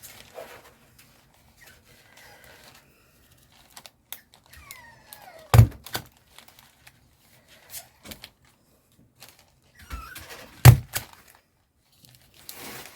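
Two loud thunks on a craft table, about five seconds apart, among small clicks and paper handling. Faint falling whines from a young Jack Russell puppy come just before each thunk.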